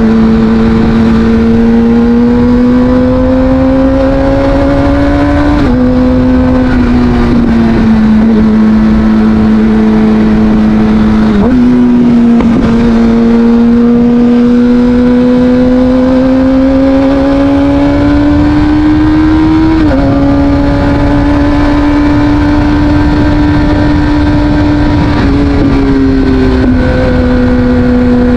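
Kawasaki Ninja ZX-6R inline-four running through an Akrapovic exhaust at cruising speed, its steady note slowly climbing in pitch and dropping suddenly a few times as the rider shifts gear or eases off the throttle.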